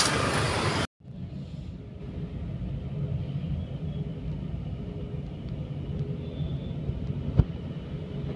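Roadside traffic noise for about the first second, then a cut to a steady low engine rumble from a Maruti Suzuki Dzire sedan running inside the enclosed car-carrier trailer, with a single sharp knock near the end.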